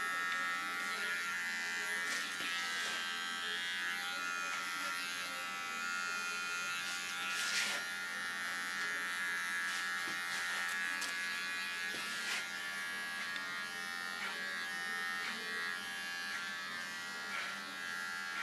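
Small electric hair clipper buzzing steadily as it trims the contour line around the ear and nape of a very short haircut.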